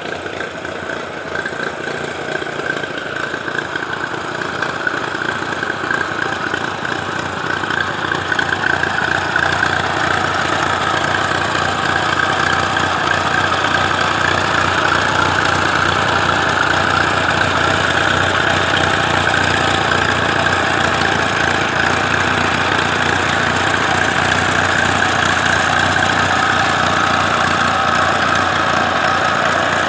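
IHC Deering F12 G tractor's four-cylinder engine running steadily at idle. It grows louder over the first ten seconds or so, then holds even.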